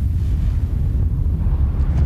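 Deep, steady rumble of an explosion sound effect standing for a nuclear blast, heavy in the low bass.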